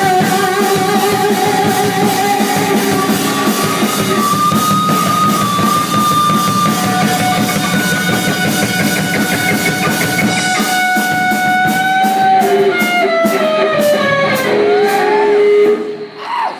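A live rock band playing, with guitar over a drum kit and long held notes. Near the end the held notes slide downward, and the music breaks off just before the end.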